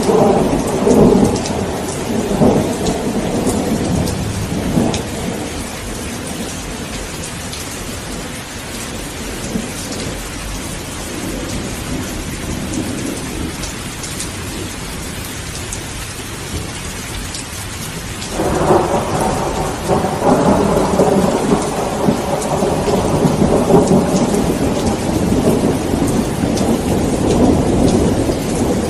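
Steady rain with rolling thunder: rumbling in the first few seconds, then rain alone for a while, then a loud rumble breaks in suddenly about two-thirds of the way through and keeps rolling.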